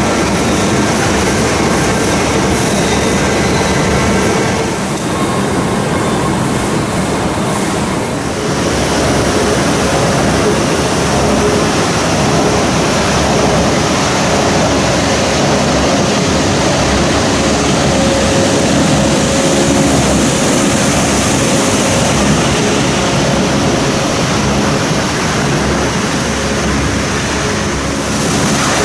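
Steady, loud machinery din of a plastic film recycling and sorting plant, a continuous rush with a faint hum of motors in it; the noise shifts briefly about five and eight seconds in.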